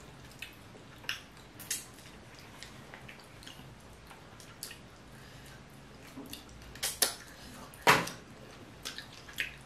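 Boiled crawfish being peeled and eaten close to the microphone: irregular sharp cracks and clicks of the shell breaking, with wet sucking and squishing. The two loudest cracks come about seven and eight seconds in.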